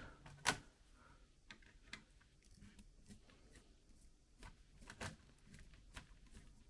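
Faint, scattered clicks and taps of a small screwdriver working the screws that hold a laptop motherboard, with the clearest clicks about half a second in and again about five seconds in.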